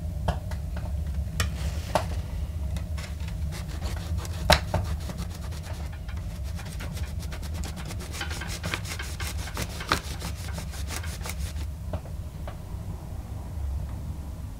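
A fish-scale stencil sheet being handled and rubbed down by hand, with scattered clicks and crackles, a sharp click about four and a half seconds in, and a fast, even run of rubbing strokes from about six to twelve seconds in, over a steady low hum.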